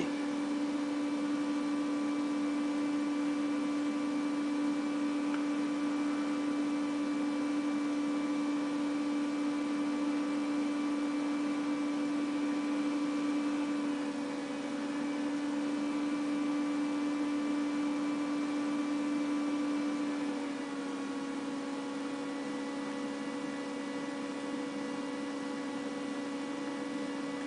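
A steady electrical or machine hum at one pitch with several overtones above it, dipping slightly in pitch and loudness about twenty seconds in.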